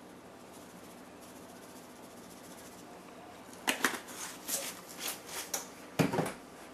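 A quiet stretch, then a handful of light clicks and knocks over about two and a half seconds, loudest near the end, as a plastic-capped grated Parmesan shaker can is closed and set down.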